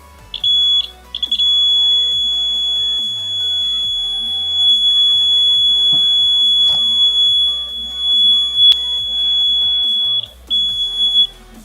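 Small DC alarm buzzer in a homemade LDR-and-transistor laser alarm circuit, sounding a steady high-pitched tone: the circuit is triggered because no light falls on the sensor. It chirps a few times as it comes on, then holds one continuous tone, and near the end cuts in and out in short beeps.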